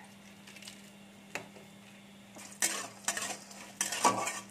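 Bori (sun-dried lentil dumplings) frying in hot oil in a metal kadai. A single light click comes about a second and a half in. From about halfway, a metal spatula scrapes and stirs them against the pan in several strokes, the loudest near the end.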